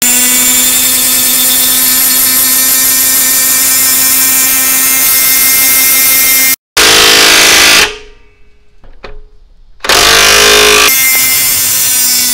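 DeWALT DCF891 half-inch mid-torque impact wrench hammering a 12-inch by half-inch lag bolt into a wooden beam, running under load at a steady pitch. It cuts off sharply about six and a half seconds in, runs again briefly, drops away for about two seconds, then runs again near the end.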